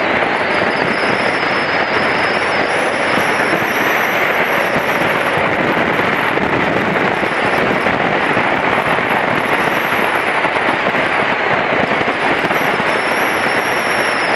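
Wind buffeting the microphone of a camera on a moving motorcycle, making a steady, loud rush with fine crackling, which covers any engine sound.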